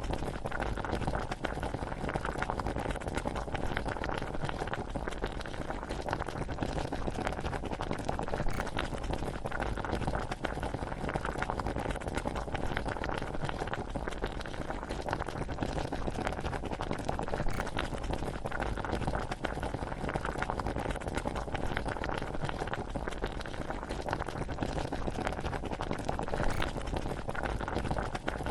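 A pot of water and rice at a rolling boil, bubbling and popping steadily without pause, used as a cauldron sound effect.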